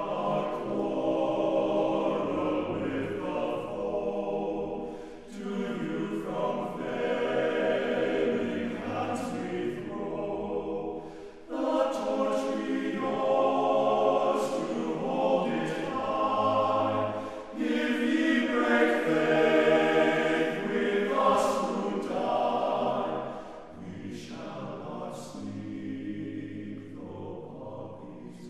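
A choir singing a slow piece in long held phrases, with short breaks between phrases and a softer final phrase.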